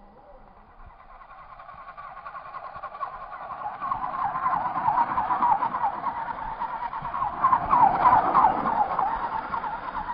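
Electric radio-controlled rock crawler (Axial Wraith) driving through snow, its motor and gears whining in a warbling pitch that wavers as the throttle is worked and the wheels spin. It grows louder as the truck comes closer, loudest about two-thirds of the way in.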